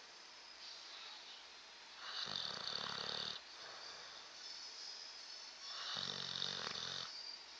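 Bulldog snoring: two loud snores, each a little over a second long and about four seconds apart, with softer breaths between them.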